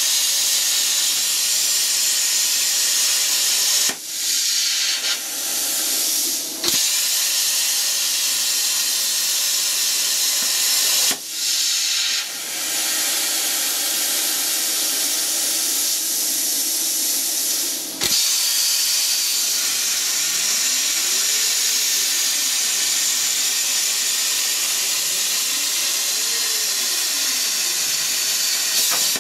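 CNC plasma cutter torch cutting steel plate: a loud, steady hiss from the arc and air jet. It breaks off briefly about four times as the arc stops and restarts between cuts, and near the end a faint tone rises and falls twice.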